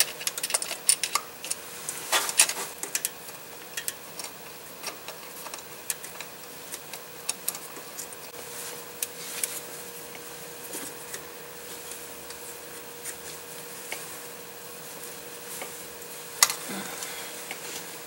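Small metallic clicks and scraping of a nut driver tightening the hold-down bolt of an automatic-transmission wiring harness connector, thickest in the first few seconds and sparser after. A faint steady hum lies underneath.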